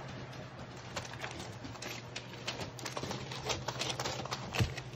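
A Vizsla puppy's paws scrabbling on newspaper, making irregular crinkles and clicks that grow busier after about a second. A steady low hum runs under them.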